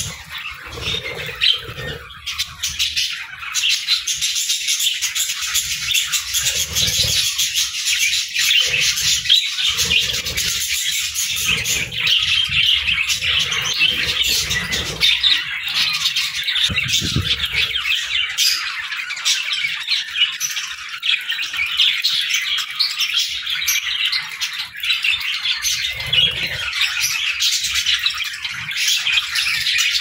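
A large flock of budgerigars chattering and chirping nonstop, many birds at once, with occasional low thumps underneath.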